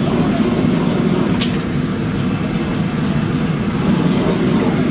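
Steady low roar of a commercial gas wok burner firing under a wok of fried rice being tossed, with one brief clink of the metal ladle on the wok about a second and a half in.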